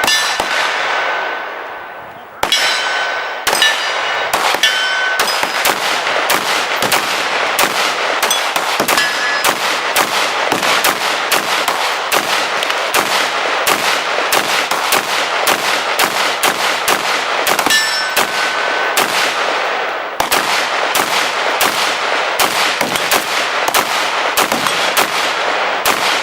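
AR-15 rifle firing 5.56 NATO green-tip rounds in steady semi-automatic succession, about two shots a second, some shots followed by a ringing clang. The shots pause about a second in, then resume and run on, with a brief break near the end.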